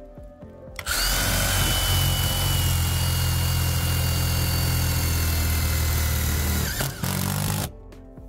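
Power drill running steadily as it bores into metal siding, with a high whine that slowly falls in pitch. It runs for about six seconds, stops briefly, then runs again for under a second.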